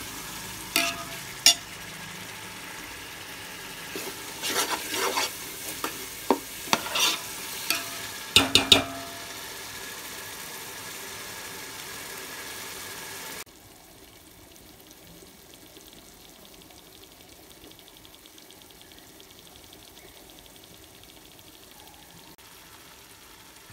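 Onion-tomato masala with curd frying in oil in a metal pot, sizzling steadily while a steel ladle stirs it, with scattered clicks and scrapes of the ladle against the pot. About thirteen seconds in the sound drops suddenly to a quieter, steady sizzle with no stirring.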